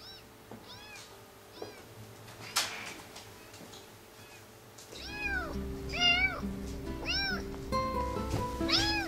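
Kittens mewing from a kitten video played on a laptop: short high calls that rise and fall, repeated, faint at first and louder from about five seconds in, where music with held notes joins. A single click about two and a half seconds in.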